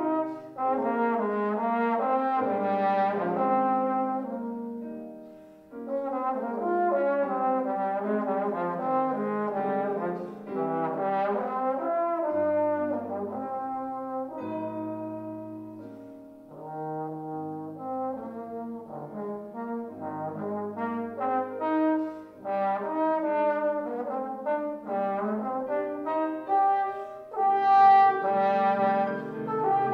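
Trombone playing a classical recital piece: a melodic line of changing notes in phrases, with short breaks about five and sixteen seconds in.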